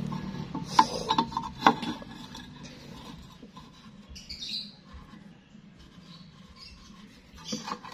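Two sharp metallic clicks as a steel square is set against a steel square tube, then a brief chirpy squeak of a marker pen drawn across the metal about four seconds in.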